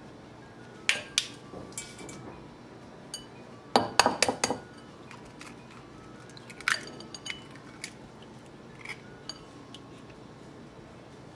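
Eggs being cracked and separated over a glass bowl and a small stainless steel bowl: scattered sharp taps and clinks of eggshell against the bowls. The loudest part is a quick run of knocks about four seconds in.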